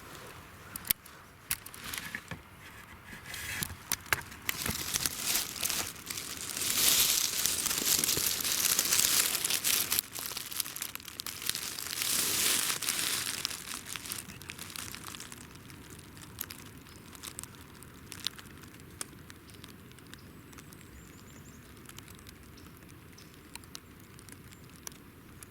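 Rustling and crinkling handling noise as the camera is moved and set down, with scattered sharp clicks. It is loudest in the middle and fades to a faint hiss for the last several seconds.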